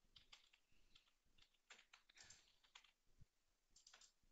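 Faint, scattered clicks of computer keyboard keystrokes and mouse buttons, several separate taps with short gaps between them.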